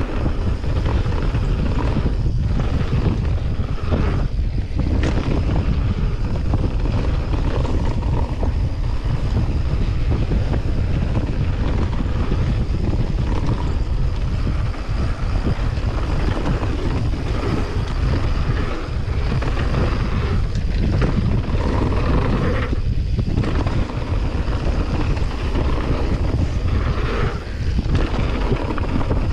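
Wind rushing over a GoPro's microphone together with tyre roar on a dirt and gravel trail as a mountain bike descends at speed, with occasional knocks from bumps.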